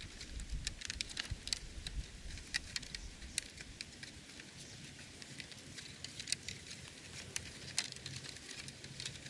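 Irregular light crackles and clicks, scattered unevenly, with a low rumble in the first few seconds.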